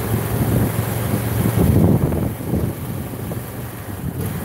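Wind buffeting the microphone over a motorcycle's engine while riding, the engine easing off and the sound getting quieter about two seconds in.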